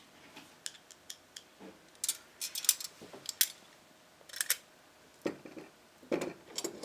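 Small metal clicks and clinks, scattered and irregular, from handling the trunk's metal latch hardware and screws while the bottom latch part is fitted.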